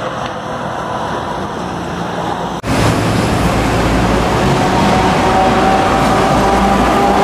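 Street traffic noise of buses and cars, cut off abruptly about two and a half seconds in. Then a louder, steady rumble of traffic as a double-decker tram approaches along its rails, with a faint thin whine above it.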